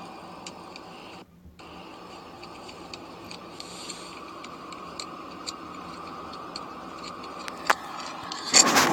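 Scattered light clicks of a wrench working loose the two long through-bolts of a starter motor, over a steady low hiss. A sharper click comes near the end, and a louder rush of noise starts just before it ends.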